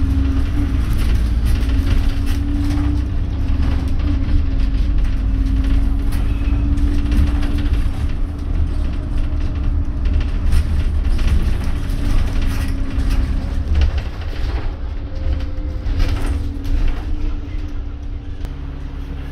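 Inside a moving London double-decker bus: the drivetrain's deep rumble with a steady hum over it, and frequent rattles and knocks from the bus body. Near the end the sound eases off a little and the hum drops lower.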